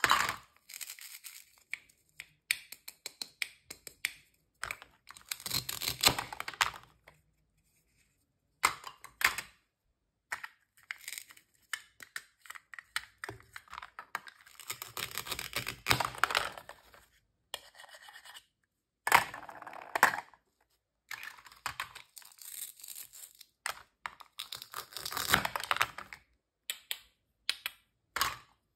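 Plastic toy fruit and vegetables being cut apart with a plastic toy knife: the velcro joining the halves rips apart in several short bursts, between plastic pieces clacking together and the knife scraping on the plastic cutting board, with brief silent gaps in between.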